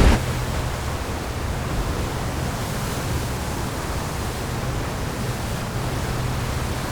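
Stormy sea sound effect: a loud wave surge drops away right at the start, leaving a steady, even rushing of churning water and wind with a faint low hum beneath.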